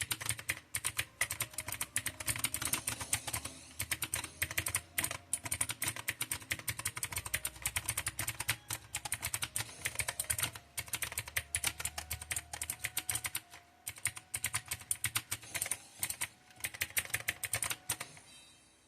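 Mechanical keyboard with clicky blue switches typed on rapidly, a dense stream of sharp clicks that stops about a second before the end.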